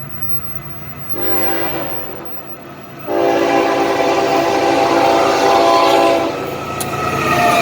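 BNSF freight locomotive's air horn sounding a short blast about a second in, then a long blast from about three to six seconds in, with another blast starting near the end, over the steady rumble of the approaching train.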